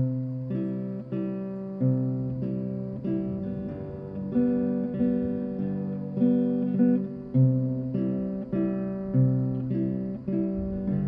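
Acoustic guitar playing picked chords in a song's instrumental opening, a new note or chord struck about every half second.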